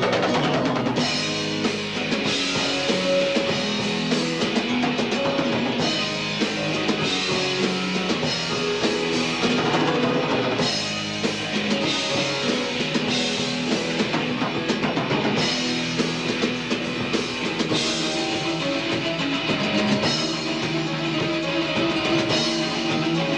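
Rock band playing live with drum kit, electric guitars, bass and keyboards; drums and guitars come in right at the start. The sound is dulled in the treble, as off an old VHS tape of a TV broadcast.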